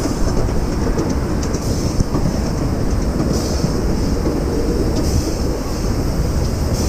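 Ride-on miniature train rolling along its track: a steady rumble and clatter of the riding cars' wheels on the rails.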